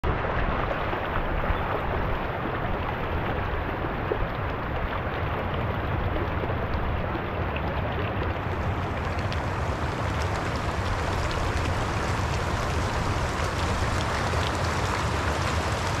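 Shallow, rocky mountain stream running: a steady wash of flowing water.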